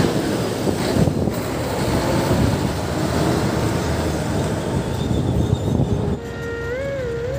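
Heavy trucks passing on a highway: a steady rushing road and engine noise with wind on the microphone. About six seconds in it gives way to background music with wavering held tones.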